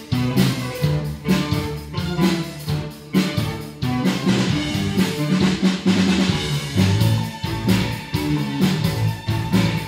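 Live band playing through a PA: a steady drum kit beat with bass guitar. A held high note joins the music about seven seconds in.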